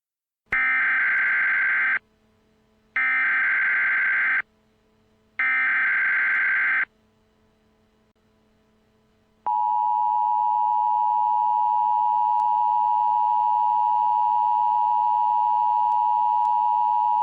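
Emergency Alert System broadcast tones: three short blasts of SAME digital header data, each about a second and a half long with a second's gap between, then the steady two-tone EAS attention signal, held for about eight seconds until it cuts off.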